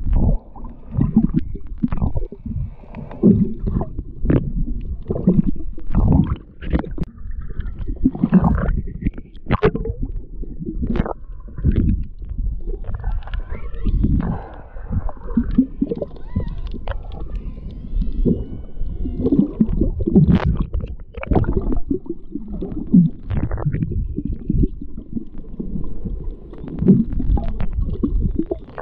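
Underwater recording of water churning and gurgling against the microphone, an irregular low rumble that swells and fades about once a second. Faint whistles gliding up and down in pitch, orca calls, come through around the middle.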